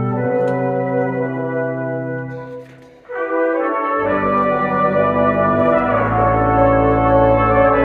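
Brass quintet playing held chords. The chords die away to a brief pause about three seconds in. The ensemble then comes back in fuller, and deep low notes join a second later.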